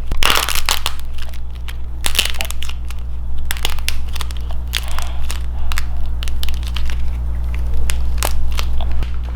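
A dried modelling-clay peach being crushed, giving a dense run of sharp crackles and crunches as the hardened clay shell breaks up.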